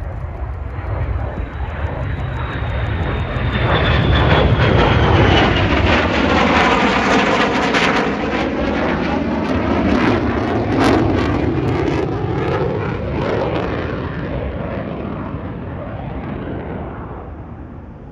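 F-35A Lightning II fighter jet's F135 turbofan engine in a fly-by pass. The roar builds over the first few seconds and peaks through the middle, with a high whine sliding down in pitch, then fades away over the last several seconds.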